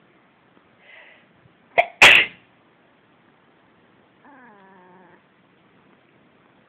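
A person sneezes loudly once, a short catch of breath and then the burst, about two seconds in. A couple of seconds later a cat meows once, a drawn-out call of about a second.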